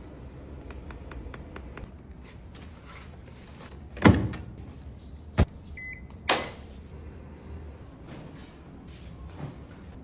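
Handling at a Haier top-loading washing machine: scattered light clicks, a loud thump about four seconds in, then a sharp knock. A short electronic beep from the washer's control panel follows, then another thump.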